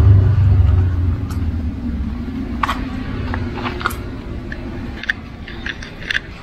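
Low motor-vehicle rumble, loudest at the start and fading away over the first few seconds, with scattered light clicks and taps.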